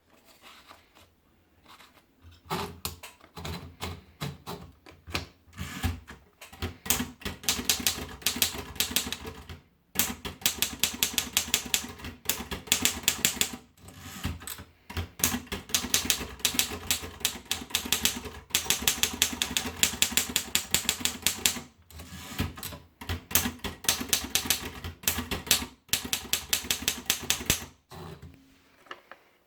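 Remington Cicero manual typewriter being typed on: runs of rapid key strikes, several a second, broken by a few short pauses.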